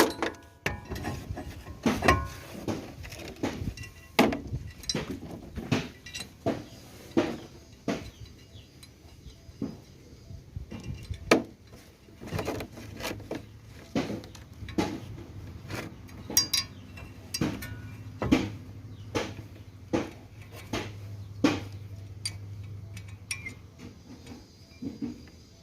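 Hammer blows on a screwdriver, sharp metal-on-metal strikes repeated about one to two times a second, staking the thin collar of a CV joint's axle nut into the groove in the shaft to lock it.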